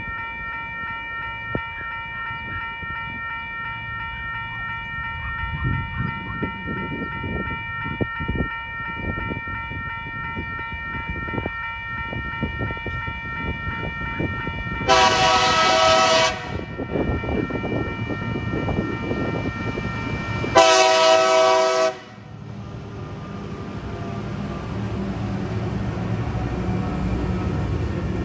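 Level-crossing warning bell ringing steadily as a freight train approaches. A TasRail TR-class diesel locomotive sounds its horn in two blasts, each over a second long and about five seconds apart. After the second blast the locomotives' diesel engines rumble louder as they reach the crossing.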